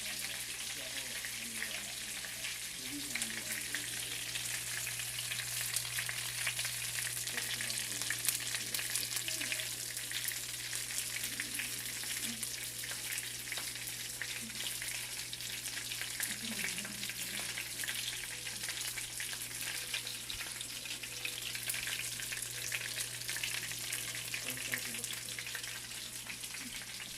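Chicken frying in hot oil: a steady sizzle full of small crackling pops throughout.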